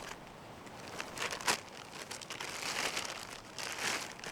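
Crinkling and rustling of packaging and gear being handled, with a few sharp clicks about a second and a half in.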